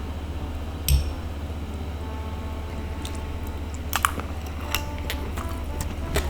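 Close-miked eating sounds from a sticky glutinous rice ball. There is one sharp click about a second in, then a few softer clicks and smacks in the second half, over a steady low hum.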